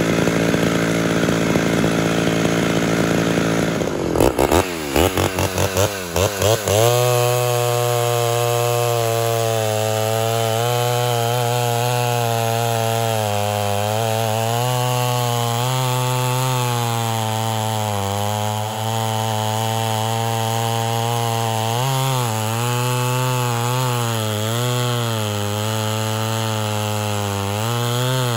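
Ported Homelite Super XL Auto two-stroke chainsaw running steadily, then revved in a quick string of sharp throttle blips about four seconds in. It then settles into a sustained full-throttle cut through a large log, its pitch dipping and recovering under the load.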